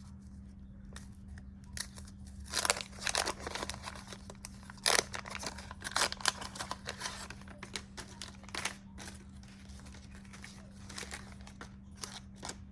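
Wax-paper wrapper of a 1989 Fleer baseball card pack being torn open and crinkled by hand, in irregular crackling bursts that are heaviest in the first two-thirds and thin out near the end, over a faint steady hum.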